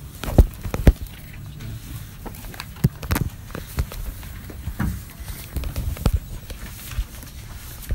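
Irregular knocks and clicks of objects being handled on a table close to the microphone, about six over the stretch, some sharp and loud, over a low room background.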